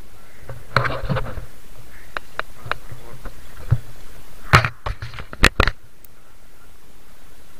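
Scattered clicks and knocks from handling a handheld camera, with a louder cluster of knocks about four and a half seconds in.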